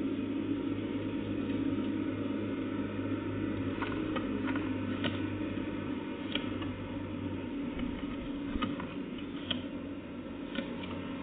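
A steady low mechanical hum, with brief sharp ticks or chirps scattered through the middle.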